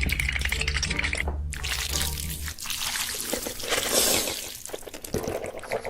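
Wet liquid sounds: splashing and trickling. Low background music runs under them and stops about two and a half seconds in.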